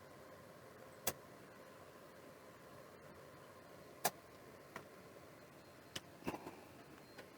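A few short, sharp clicks and taps of small tools at a soldering workbench, over a faint steady hum.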